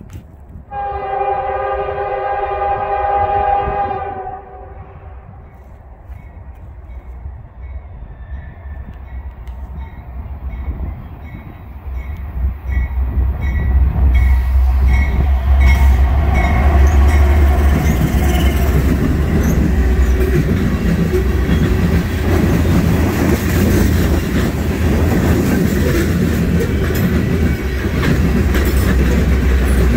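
Norfolk Southern diesel freight locomotive's horn sounds one long blast about a second in. A bell then rings repeatedly while the train approaches, and the locomotives' low engine rumble builds and passes about 14 seconds in. After that, loaded covered hopper cars roll past with a steady clickety-clack of wheels on rail.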